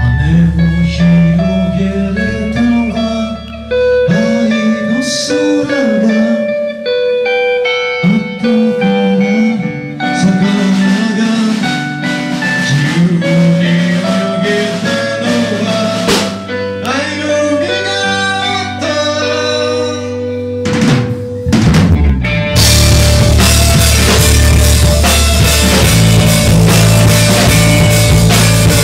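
Live rock band playing: a vocal melody over guitar and lighter accompaniment, then the full band with drums comes in loudly about twenty-two seconds in.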